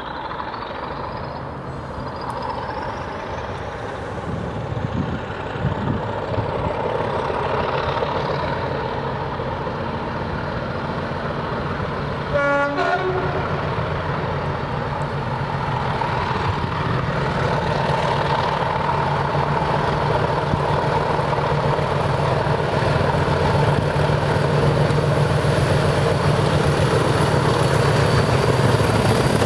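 Class 40 diesel locomotive (English Electric 16-cylinder engine) approaching under power, its engine growing steadily louder as it nears. A high whistle, typical of the class's turbochargers, climbs in pitch over the first several seconds. The horn gives one short blast about halfway through.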